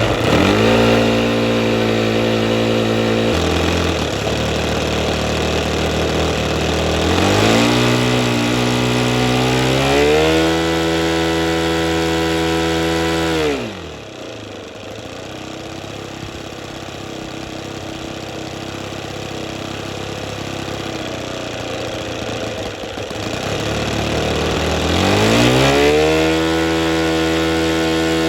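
Small radio-controlled model aircraft engine running after being started: it is throttled up in steps, drops back to a quieter steady idle about halfway through, then revs up again near the end and holds.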